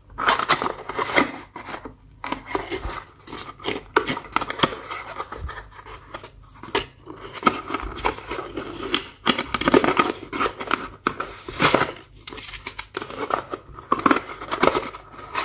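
Packaging of an LED headlight bulb being opened and handled by hand: irregular crinkling, tearing and scraping of plastic and cardboard, with sharp clicks.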